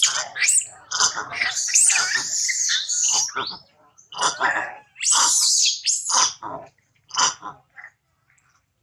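Young long-tailed macaque giving distress screams: a run of shrill, high-pitched cries in quick succession with short breaks, fading to a few short cries and then stopping near the end.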